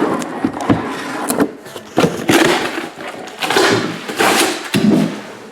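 Handling noise from opening a case of card boxes: cardboard and packaging scraping and rustling in several stretches, with sharp knocks between them.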